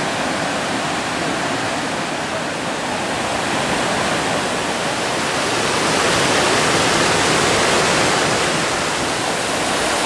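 Waterfall: a steady, full rush of falling and cascading water, a little louder about two-thirds of the way through.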